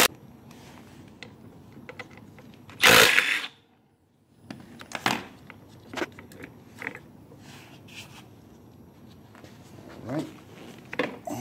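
A Milwaukee cordless impact wrench runs in one short burst about three seconds in, loosening a stator bolt on a GY6 scooter engine. After that come scattered light clicks and knocks of bolts and metal parts being handled.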